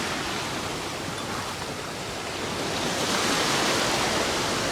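Shallow sea waves washing over the shore in a steady rush of surf, swelling a little about three seconds in.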